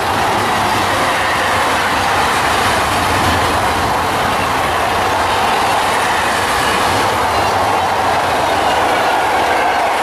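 Freight train of hopper wagons rolling past at speed: a steady rumble and rattle of wheels on rail, with some clickety-clack, holding an even level.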